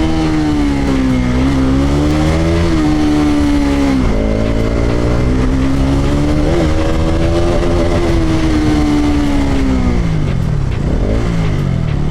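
Bajaj Pulsar RS200's single-cylinder engine under way. The revs sag and rise, drop sharply with a gear change about four seconds in and hold steady, then fall away as the bike slows near the end before climbing again.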